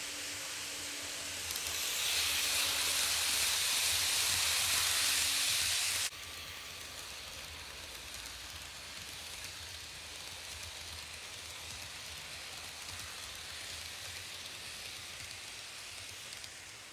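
KATO N-scale Amtrak train, an ACS-64 locomotive pulling Amfleet coaches, running along the track: a steady hissing whir of small wheels on rail and motor. It grows louder about two seconds in, then drops abruptly to a quieter hiss about six seconds in.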